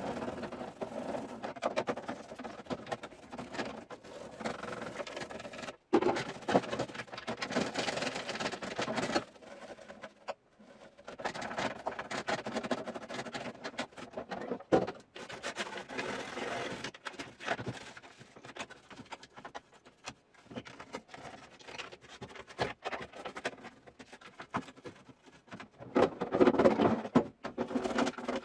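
Hands working on a Corona dehumidifier: irregular scraping, rattling and light knocks of its parts, in uneven bursts with short pauses.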